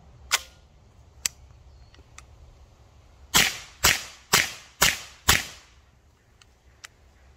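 A couple of sharp clicks, then five suppressed 9mm shots in quick succession, about half a second apart, each with a short echo. They come from a CZ Scorpion fitted with a Dead Air Wolfman suppressor in its short configuration, firing 115-grain steel-case rounds that the shooter thinks stay subsonic.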